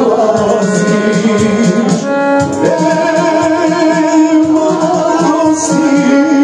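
Live folk song: a chromatic button accordion playing the melody and held chords over a steady backing beat, with a man singing along into a microphone.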